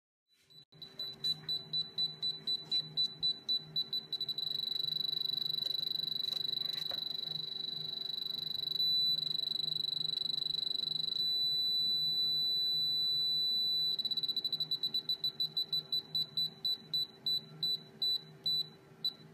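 Piezo buzzer on a PSoC 4 caliper display sounding a single high-pitched beep as the warning for the active X-axis limit. Quick pulses, about four a second, merge into a continuous tone about four seconds in. About fourteen seconds in it breaks back into pulses that slow down toward the end, as the X reading moves away from the set limit. A faint steady low hum runs underneath.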